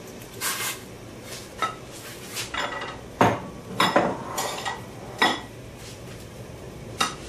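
Metal kitchen tongs clinking and clanking against a stainless steel pot and a glass bowl as pieces of pork are lifted over and dropped into boiling water to blanch. About ten short, irregular clinks, the loudest near the middle.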